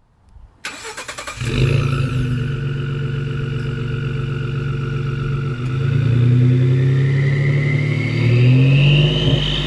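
Ford F-150 3.5L EcoBoost twin-turbo V6, fitted with an upgraded turbo kit and stainless cat-back exhaust, starting up: it fires suddenly about half a second in and settles into a steady idle. It is then revved lightly twice, and during the second rev a rising turbo whistle climbs above the exhaust note.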